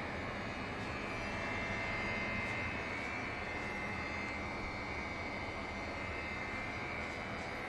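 Hitachi air conditioner compressor running with an abnormal noise: a steady rushing hum with a high, slightly wavering whine on top.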